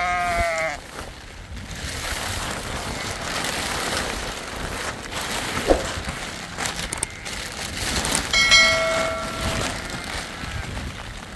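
Plastic sheeting rustling and crinkling as it is spread and tucked over bedding by hand. A sheep bleats at the start, and a second, steadier call comes about eight seconds in.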